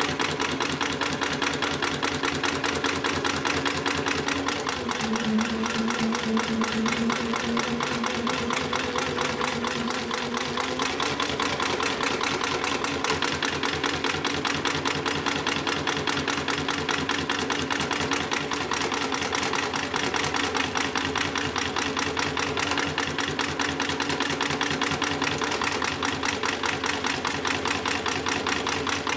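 Hightex 7273ECO heavy-duty sewing machine stitching continuously through several layers of thick lifting-sling webbing. It keeps a rapid, even stitch rhythm over the hum of its motor, with no pauses.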